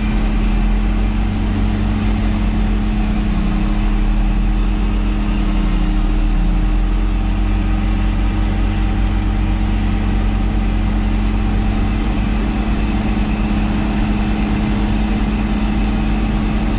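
Diesel engines of farm machinery running steadily under load during corn chopping, heard from inside a cab as a loud, even drone with a steady low hum.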